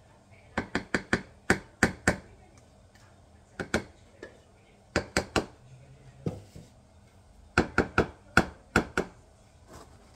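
A spatula knocking and scraping against a stainless steel saucepan and a glass baking dish while thick semolina batter is scraped out: sharp clicks in quick clusters of two to six, several times over.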